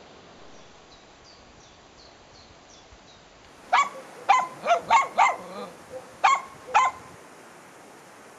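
Dog barking: a quick run of about six sharp barks, then two more after a short pause.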